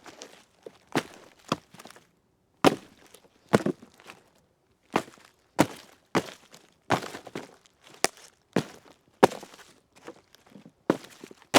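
A tree trunk kicked over and over, a knock with a short wooden ring after each kick. The kicks come at an uneven pace, about one every half second to second, some in quick pairs.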